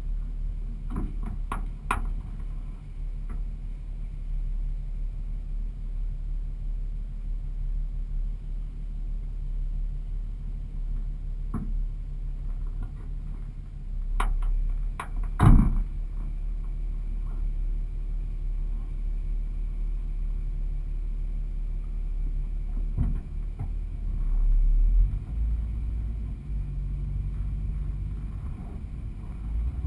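Vehicle driving over beach sand, heard from a hood-mounted camera: a steady low engine and road rumble, broken by a few sharp knocks, the loudest about halfway through.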